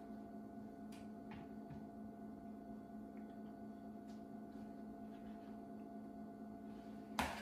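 Quiet steady hum with a few faint light ticks of fajita chicken pieces dropped by hand onto tortilla chips, and one short louder bump near the end.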